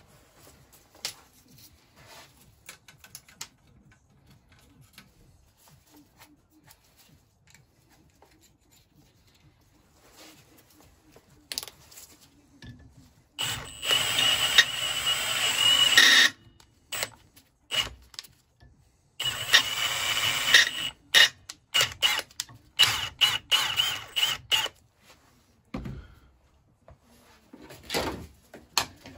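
Cordless brushless drill (Milwaukee M12 Fuel) working into the cast-iron vaporiser to drill out a sheared stud, after some light clinking of tools. It runs steadily with a high whine for about three seconds, then comes in a string of short trigger bursts.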